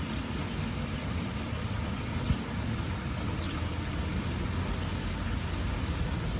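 Steady low rumble with a fainter hiss above it: outdoor background noise.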